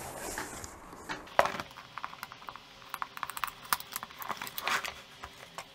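Fingers picking and scratching at the top of a cardboard box to open it: a scattered run of small clicks and scratches, with a sharper knock about a second and a half in.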